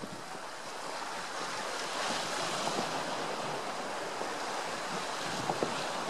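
Sea surf and wind on the microphone: a steady rushing noise that grows a little louder about two seconds in, with a faint tick near the end.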